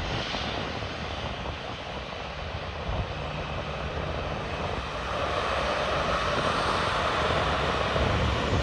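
Airliner engines passing, a steady rushing noise with a low rumble that grows louder from about five seconds in.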